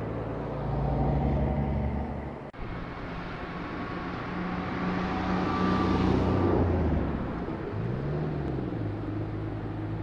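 Motor vehicle engines running with road noise, swelling louder twice as traffic passes, with a brief dropout about two and a half seconds in.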